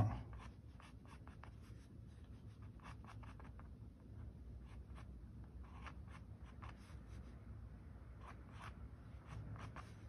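Graphite pencil on paper sketching fine feather lines: many quick, short scratching strokes at an irregular pace.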